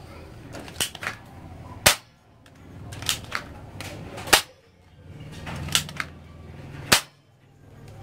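Gunshot sound effects: three sharp single shots about two and a half seconds apart, each preceded by two lighter clicks.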